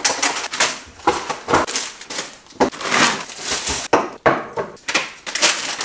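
Plastic shopping bag rustling and crinkling in irregular bursts as groceries are taken out of it and set on the kitchen bench.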